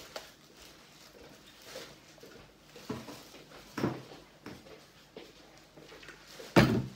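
Quiet handling sounds of slime-making: hands working sticky slime in a plastic mixing bowl and a squeeze bottle of activator being handled. There are a few short soft knocks and squelches, the loudest near the end.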